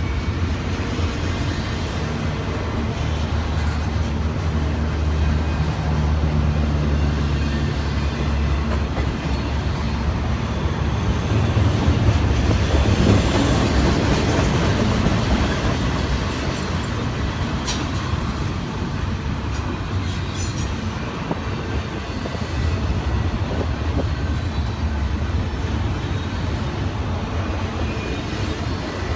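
A train rolling past close by: a steady heavy rumble of wheels on rail with clicking over the joints, and a low engine drone during the first third.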